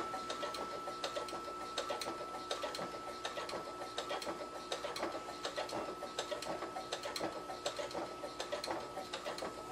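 Janome sewing machine stitching slowly through four layers of fleece: a steady motor whine under an even run of needle clicks. Run slow so the 90/14 needle, near its limit in this thickness, has time to make each stitch, and the labouring noise it made at speed is gone.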